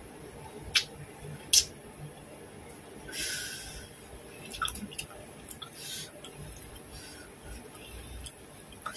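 Close-up mouth sounds of eating with the fingers: a few sharp lip smacks and clicks, the two loudest in the first two seconds, with soft chewing and a short sucking hiss about three seconds in.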